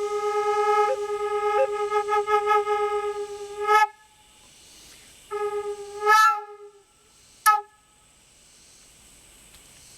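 Black walnut drone flute playing a long held note with a slight pulse and two quick upward grace-note flicks, ending shortly before 4 s in. After a pause comes a shorter note about 5 s in and a brief chirp near 7.5 s.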